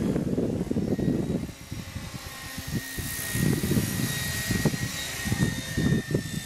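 Gaui Hurricane 550 electric RC helicopter in flight: a steady high motor and gear whine with rotor hiss that grows louder about halfway through. Under it is a gusty low rumble of wind on the microphone, which is the loudest part.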